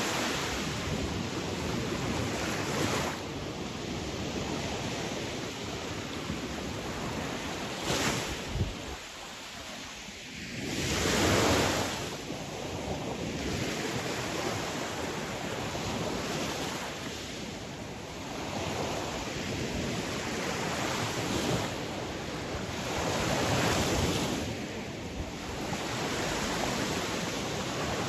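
Sea waves washing on a shore in a continuous rush that swells and ebbs. A wave surges loudest about eleven seconds in, after a brief lull, and another swell peaks near the last third.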